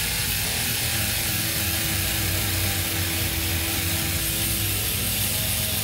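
Power tool with a wide abrasive stripping wheel running steadily against the steel floor pan, scouring the paint off down to bare metal.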